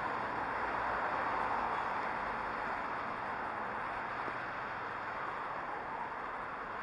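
Steady, even hiss of outdoor city background noise, with no distinct events standing out.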